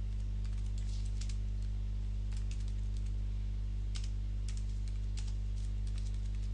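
Computer keyboard typing: irregular, separate keystroke clicks as a line of C++ code is entered, over a steady low hum.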